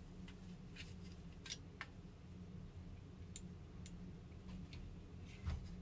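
Scattered light clicks and taps of small plastic parts of a computer mouse being handled and fitted back together, about half a dozen in all.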